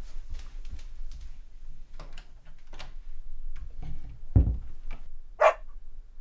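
Scattered soft knocks and clicks of someone moving about a room, then a heavy low thump about four seconds in and a short sharp clack a second later.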